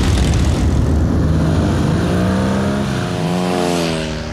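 Motorcycle engine running under way: a loud rumble with rushing noise, and an engine note that rises and dips over the last couple of seconds.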